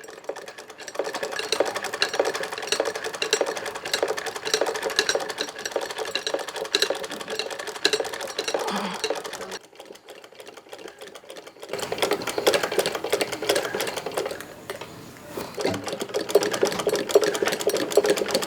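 Old mechanical sewing machine stitching, a fast, even clatter of the needle mechanism. It stops for about two seconds midway, then starts stitching again.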